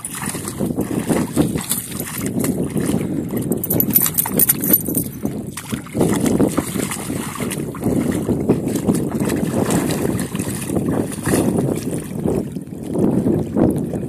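A Landseer Newfoundland dog splashing in a shallow puddle, pawing and stepping in the water in irregular slaps and sloshes. Near the end he lies down in it.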